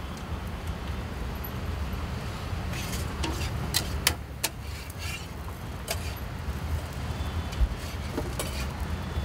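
Street ambience: a steady low hum of road traffic, with a handful of short sharp clicks and clinks in the middle.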